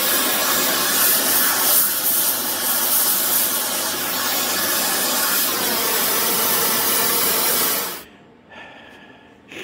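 Oxy-acetylene gas torch flame hissing steadily as it heats a steel tube held in a vise. The hiss stops abruptly about eight seconds in, leaving faint room tone.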